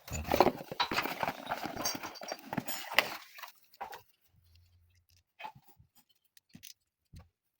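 Rustling and clattering of objects being handled, with a sharp knock about three seconds in, then a few scattered light clicks and taps.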